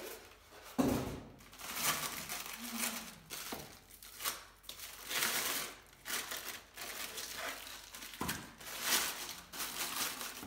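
Clear plastic wrapping crinkling and rustling in irregular bursts as a wrapped juicer part is handled, with a thump about a second in.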